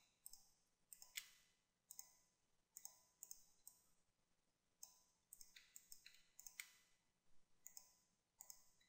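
Faint computer mouse clicks, a couple of dozen short irregular clicks over near silence.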